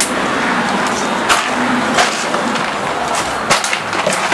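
A dog pushing a plastic bottle stuffed with treats around a wooden deck with nose and paws: the plastic crackling and scraping over the boards, with several sharp knocks as it hits the deck.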